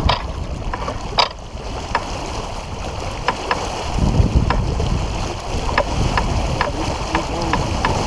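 Sailboat under way: wind gusting on the microphone over the rush of water along the hull, with scattered light ticks.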